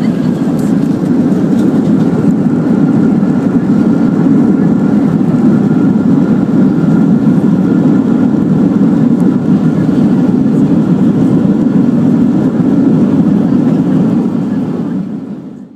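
Loud steady roar of a Southwest Airlines Boeing 737's jet engines and runway rumble, heard from inside the cabin during the landing rollout, with a faint high whine above it. It fades out near the end.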